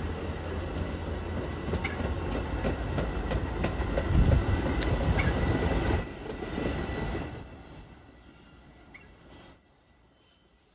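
Metra bilevel commuter cars rolling through the station, wheels clicking over rail joints with a faint wheel squeal and a low rumble that peaks about four seconds in. The noise fades away after about seven seconds as the train slows.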